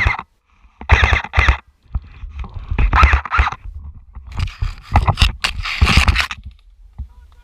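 Scraping and rustling in about four separate bursts, the longest near the end, over a low rumble: noise from a player's gear and clothing moving on the airsoft field.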